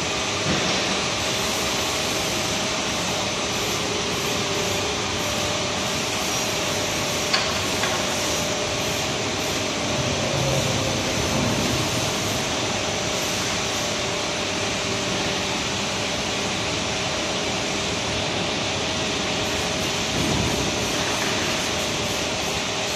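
Single-screw, twin-die-head blown film extrusion line running: a steady machine noise with a faint constant hum. One sharp click about seven seconds in.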